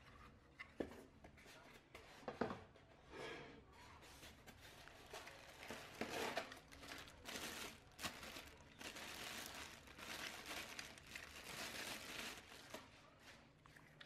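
Clear plastic bag crinkling and rustling as a monitor stand base is pulled out of it, in irregular bursts. Two sharp clicks in the first few seconds, from plastic parts being handled.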